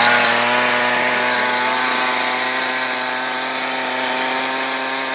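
Ryobi RY3714 37cc two-stroke chainsaw engine running steadily at idle just after being pull-started, its pitch holding even.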